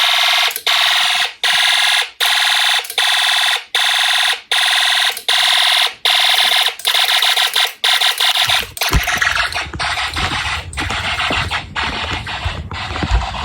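Home-built Snap Circuits fire alarm system sounding its alarm: a harsh electronic buzzing tone pulsing on and off evenly, about once every three-quarters of a second. About nine seconds in, the pulsing turns choppy, and low knocks and rustling join it.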